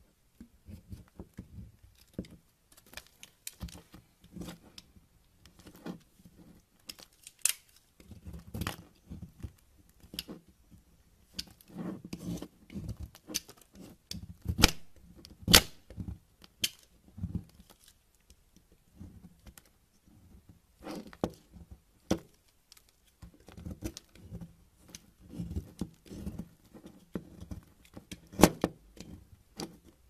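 Knife blade carving a bar of soap: irregular scraping strokes as curls are shaved off, with sharp crisp clicks as the blade cuts through.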